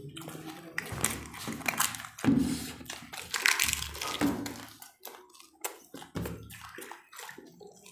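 Panipuri being eaten fast: crisp puri shells crunching, the spiced water in them slurped and sloshing in the mouth, and wet chewing, in irregular bursts with sharp crunchy clicks.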